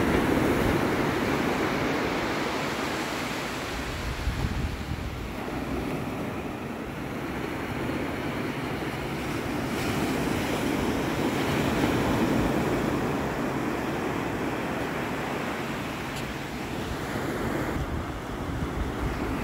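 Atlantic Ocean surf breaking and washing up a flat sandy beach, in a steady wash that swells and eases as each wave comes in. It is loudest near the start and again about halfway through.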